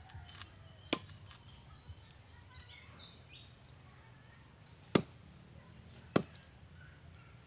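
Bolo knife chopping into a very hard tree trunk. There are a few light knocks in the first second, then two sharp, loud chops about five seconds in, a little over a second apart.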